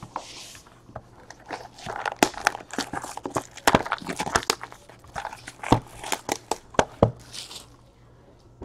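Hands opening a sealed 2017 Topps Allen & Ginter hobby box of baseball cards: crinkling of the plastic wrap, with sharp snaps and taps from the cardboard box. The sounds come thickest through the middle and thin out near the end.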